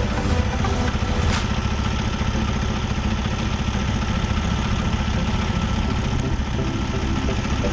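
Steady engine and road rumble heard inside a vehicle's cab while driving, with a single short tick about a second in.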